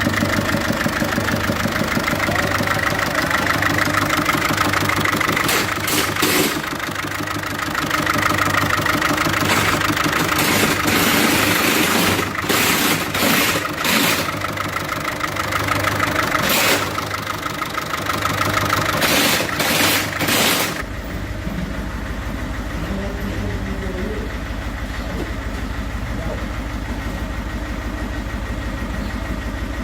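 1.6 HDi four-cylinder common-rail diesel engine idling roughly with an uneven beat, the sign of a defective fuel injector. Several short, loud noises cut across it in the first two-thirds, and after that the sound turns steadier and duller.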